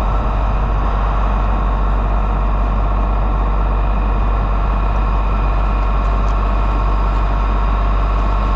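Engine of a tow-behind high-pressure sewer jetter running steadily at one speed, driving the water pump during hydro jetting.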